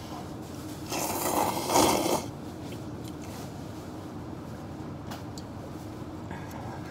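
A person slurping ramen noodles: one loud slurp lasting about a second, over a steady low hum.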